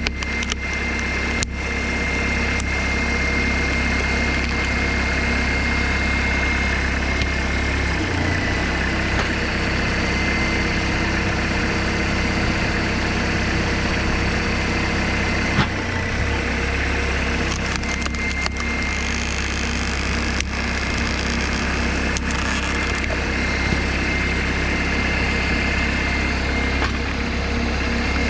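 Homemade tractor engine running steadily while it drives a hydraulic log splitter, with a steady high whine above the engine. Wood creaks, cracks and splits as the ram forces a log through the wedge, with sharp cracks about a second and a half in and again around 16 seconds.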